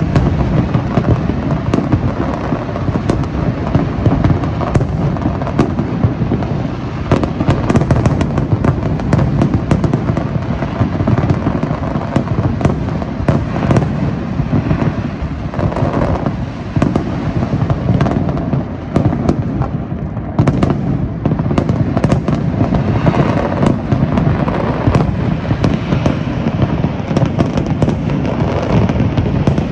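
Large fireworks display: a dense, continuous barrage of shell bursts, booms and crackling, many going off at once with no pause.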